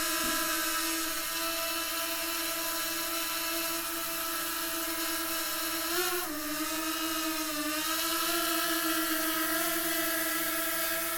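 DJI Mavic Mini 2 quadcopter's propellers whirring steadily in flight. About six seconds in the pitch briefly rises, then dips lower for a second or two before settling back.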